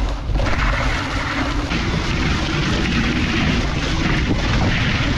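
Wooden dog sled runners sliding over snow while the dog team pulls, with wind rumbling on the microphone: a steady noise.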